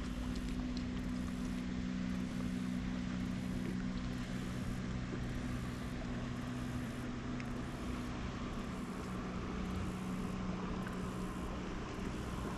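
A steady motor hum, with wind noise on the microphone underneath.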